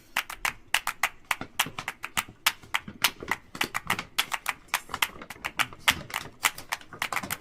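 Rapid, irregular light tapping clicks, several a second.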